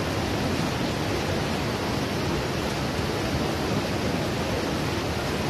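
Steady roar of rushing water from the Bhagirathi river in spate, a swollen, muddy mountain torrent in flood after heavy rain.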